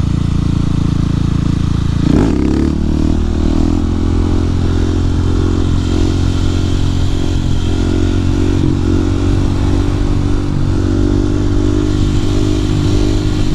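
Husqvarna 701 supermoto's single-cylinder engine running under way, heard from inside the rider's helmet with wind noise. The revs dip and pick up again briefly about two seconds in, then the engine holds steady.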